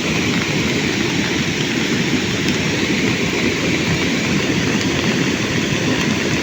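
Floodwater rushing, a loud steady noise that never lets up.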